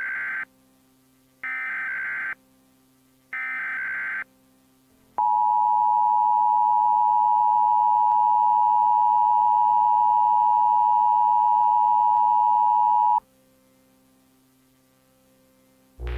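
Emergency Alert System test signal: three short bursts of SAME header data tones, then the two-tone EAS attention signal held steady for about eight seconds before cutting off sharply.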